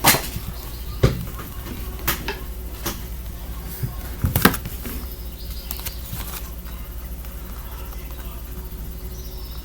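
Scattered clicks and taps of tarot cards being handled on a table, loudest at the start and around four and a half seconds in, over a steady low hum. Faint bird chirps come through in the background near the middle and again near the end.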